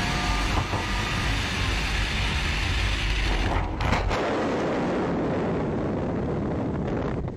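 Heavy wind and road rush on an exterior camera on a Ferrari 458 GT3 race car at high speed. About four seconds in there is a brief knock, and the low rumble drops away as the car crashes.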